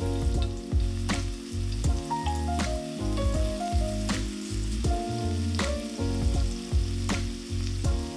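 Chopped scallions sizzling and crackling in hot oil in a cast-iron pan, stirred with a wooden spatula, over background music.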